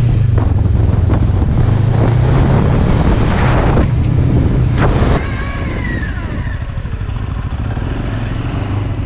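Sport motorcycle engine running steadily under way. About five seconds in it cuts off abruptly, giving way to the quieter engine of an ATV with a thin wavering whine.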